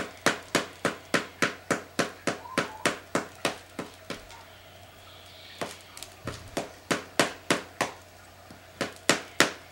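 Paddle ball toy in play: the rubber ball on its elastic string struck again and again by the small paddle, a steady run of sharp taps about three a second. The rally breaks off about four seconds in, picks up again briefly, and starts once more near the end.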